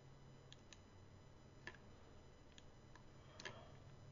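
Faint computer mouse clicks, a few single sharp clicks and one quick pair, over a low steady hum.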